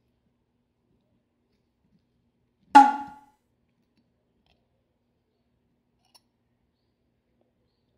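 A single sharp clink of metal cutlery striking a ceramic plate about three seconds in, ringing briefly before it dies away. A faint tick follows near the end.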